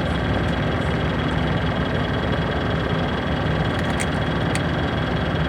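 A steady mechanical hum with a low rumble, and two light clicks about four seconds in.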